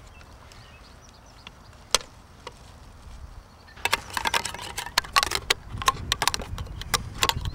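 Metal spoon jabbing and scraping at the lid of a tin can to force it open: a rapid, uneven run of sharp metallic clicks and scrapes from about four seconds in, after a single sharp click about two seconds in.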